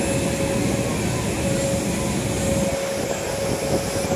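Steady aircraft engine drone with a constant whine over a wash of noise, holding level with no rise or fall.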